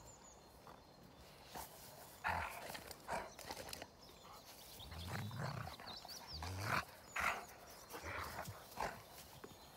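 Two large dogs play-fighting, growling and snarling in short bursts, several times over.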